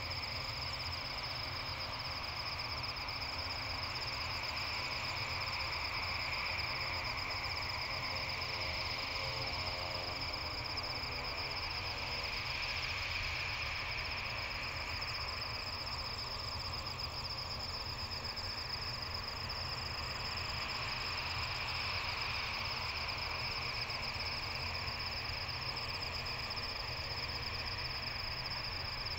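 A chorus of night insects, crickets, trilling steadily and high-pitched over a low steady rumble.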